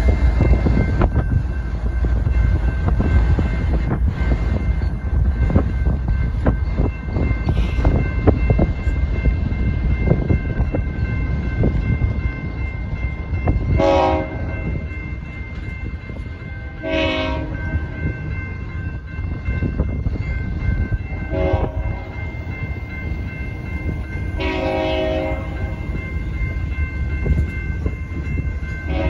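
Freight train rolling through a grade crossing: the last GE diesel locomotive passes at the start, then double-stack intermodal cars rumble and clatter along the rails, with the crossing's warning bell ringing steadily throughout. From about halfway through, a train horn sounds the long, long, short, long grade-crossing signal, with another blast near the end.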